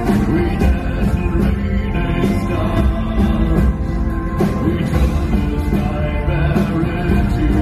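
Live band music through a concert PA, heard from the audience: guitar, double bass and drums playing a rock song, with a sung vocal.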